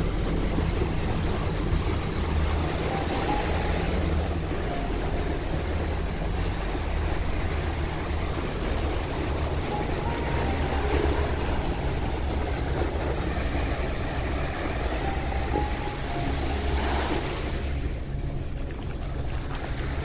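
Small ocean waves breaking and washing up a sandy shore, over a steady low rumble; a brief, brighter hiss of surf about seventeen seconds in.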